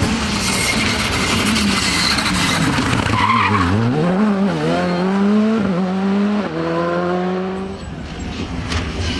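Skoda Fabia R5 rally car's turbocharged four-cylinder engine at full attack through a tight bend. The revs fall as it brakes into the corner about halfway through, then climb again with two quick upshifts as it pulls away, and the sound fades near the end.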